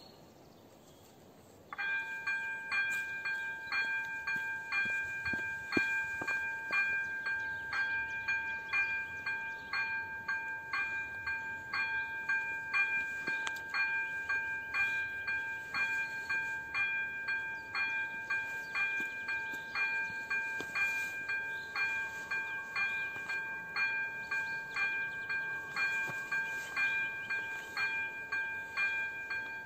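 Electronic warning bell of an AŽD 97 railway level crossing ringing in a fast, even, repeating ding, starting about two seconds in: the crossing has activated for an approaching train.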